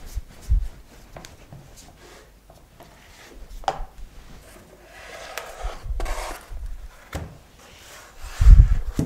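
White plastic rolling pin rolling over and knocking on a polythene board as sugarpaste is rolled out and wound onto the pin, with rubbing of hands and paste. A few loud, dull thumps come near the end.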